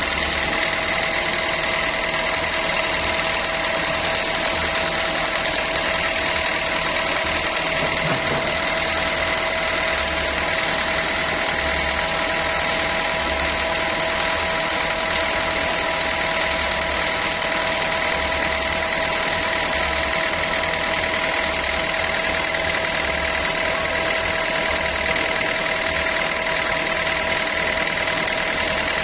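Sawmill saw and its machinery running steadily, with a constant high whine over a mechanical hum.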